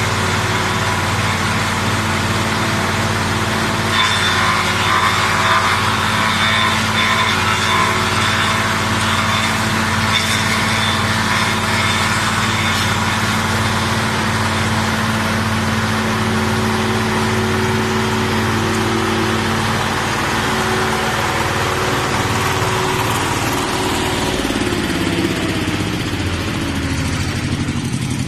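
Garden branch shredder-chipper running with a steady engine hum. From about four seconds in, for roughly ten seconds, a louder crackling grind joins it as branches go through the cutters. Near the end the engine note drops as the machine slows.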